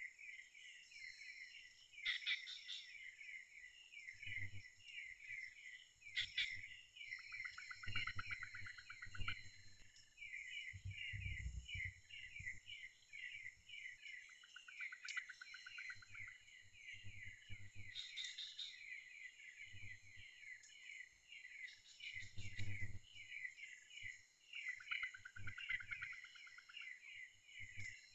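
Tropical forest ambience: insects chirping in a fast, even rhythm with bird calls coming and going over it, and a few low thuds.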